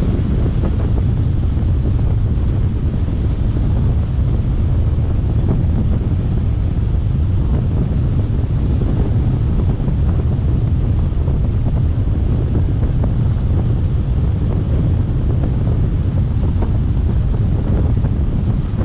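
Wind buffeting the microphone on a moving motorboat, a loud, steady low rumble.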